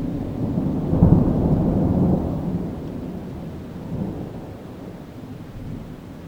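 A thunderclap that breaks suddenly, is loudest about a second in, then rolls on as a low rumble that fades over several seconds.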